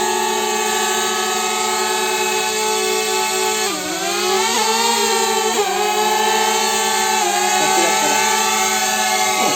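Quadcopter drone's propellers whining steadily, several rotors at slightly different speeds, the pitch dipping briefly twice as the throttle changes.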